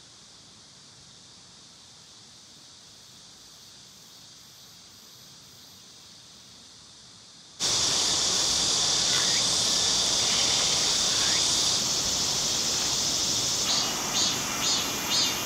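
Insects calling: a faint, steady high-pitched drone that cuts abruptly to a much louder chorus about halfway through, with a few pulsing calls near the end.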